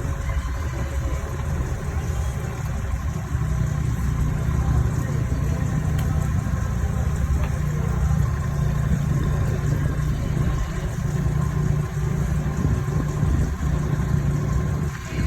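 Excavator engine running with a steady low hum.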